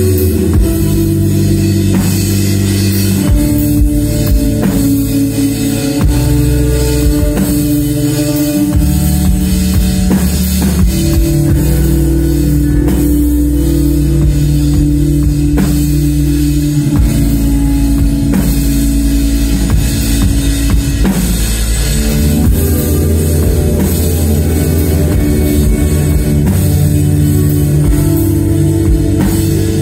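Live instrumental post-rock band playing loudly: layered electric guitars and bass holding low chords that change every few seconds over a driving drum kit.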